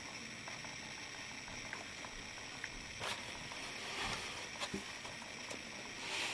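Quiet, steady hiss with a few faint, soft clicks and scuffs of hand handling, as the model on its display base is moved about on the table.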